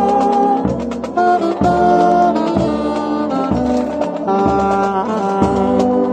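Marching brass band playing in full, with sustained brass and saxophone chords over a bass drum beating about twice a second; a saxophone plays close by.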